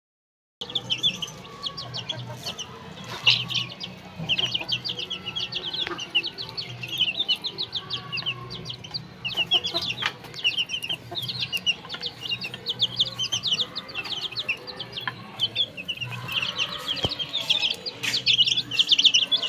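A flock of chicks peeping continuously in quick, high-pitched chirps, with adult hens clucking now and then and occasional sharp clicks.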